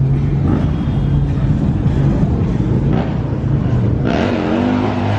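Car engines running steadily. About four seconds in, a louder engine comes in, its pitch rising and falling as it revs.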